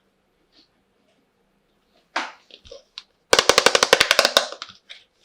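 Light clicks and a short rustle, then a fast rattling run of about twenty sharp clicks in about a second, from plastic toy kitchen pieces being handled.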